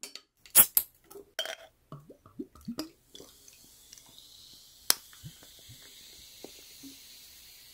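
Glass soda bottle's cap pried off: a few sharp clicks, the loudest about half a second in. From about three seconds in, carbonated soda is poured into a glass and fizzes with a steady high hiss as it foams up. There is one sharp click partway through the pour.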